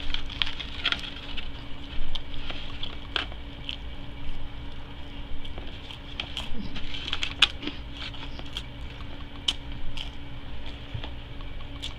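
Close-up eating sounds from chewing a fish sandwich: irregular wet mouth clicks and crackles, with the aluminium-foil wrapper crinkling now and then as the sandwich is handled.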